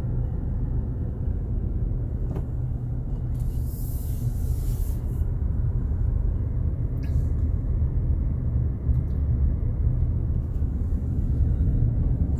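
Steady low rumble of a car's engine and tyres heard from inside the cabin while driving, with a brief faint hiss about four seconds in.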